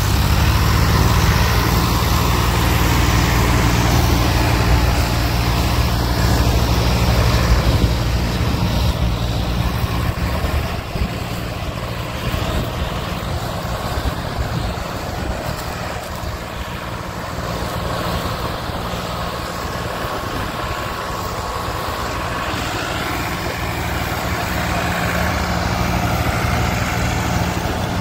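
Tractor diesel engines running under heavy load, hauling a loaded sugarcane trolley through a waterlogged field. The sound eases slightly about ten seconds in.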